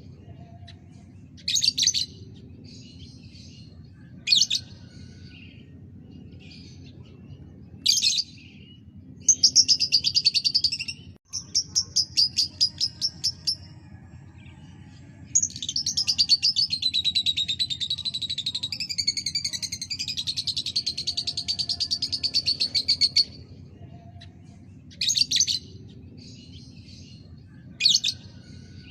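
Lovebird singing: short sharp chirps every few seconds and long rapid chattering trills, the longest running about eight seconds, over a steady low hum.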